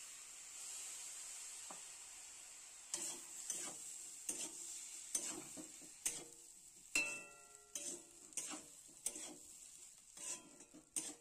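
Semolina and vegetables sizzling in a hot metal kadai as water is worked in a little at a time. From about three seconds in, a steel spatula scrapes and knocks against the pan at about two strokes a second, and one knock leaves the pan ringing briefly.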